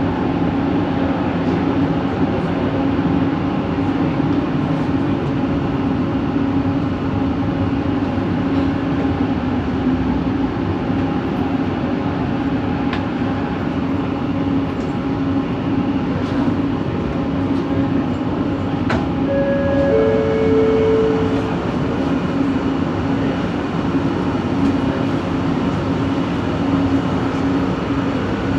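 Metro train Set 70 running, heard from inside the carriage: a steady rumble with a strong continuous low hum, part of the odd motor noise the uploader traced to coach 4. About two-thirds of the way through, two short steady tones sound, the first higher than the second.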